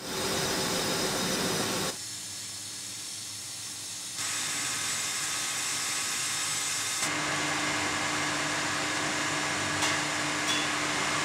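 Steady hiss and hum of distillery equipment, with a low steady tone underneath. The noise changes abruptly in level and character three times, and there are a couple of faint clicks near the end.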